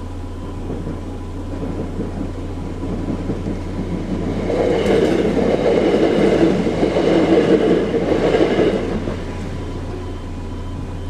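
A train passing over a level crossing: its rumble and wheel clatter build from about three seconds in, are loudest for about four seconds, then die away. A faint steady tone, the crossing's quiet E2S alarm, runs underneath.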